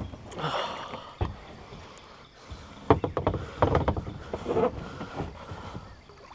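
Kayak paddling: paddle strokes splashing in the water, with irregular sharp knocks mixed in, the loudest about three seconds in.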